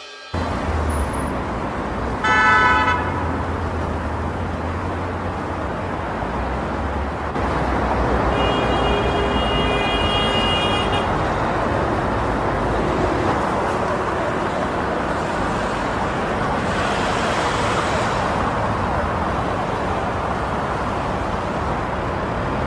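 Road traffic: a steady rumble of vehicles, with a short car-horn honk about two seconds in and a longer, higher horn held for about three seconds a little before the middle.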